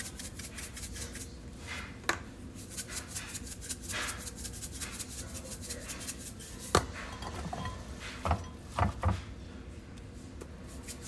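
A salt-and-pepper shaker rattling in quick, even shakes for about a second. Then scattered clinks and knocks of containers and utensils on the counter: one about two seconds in, the loudest a little past the middle, and a short cluster near the end.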